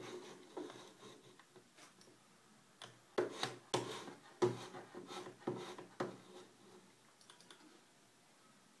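Macintosh Plus internal 800K floppy drive reading the System Tools disk: scratchy clicks and rasping bursts of the head stepping and the motor spinning, busiest for about three seconds from roughly three seconds in.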